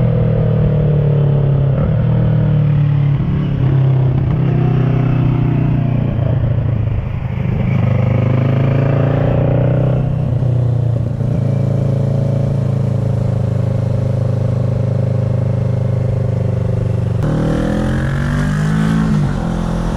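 Kawasaki ER-6n 649 cc parallel-twin engine running through an SC Project carbon slip-on exhaust while riding. The engine pitch mostly holds steady with small dips and climbs, then drops about three-quarters of the way through and climbs again as the engine revs up near the end.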